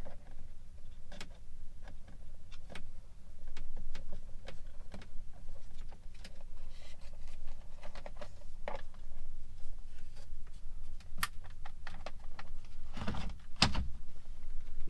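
Scattered plastic clicks and knocks of wiring connectors and dashboard trim being handled and pressed into place, with two heavier thumps near the end.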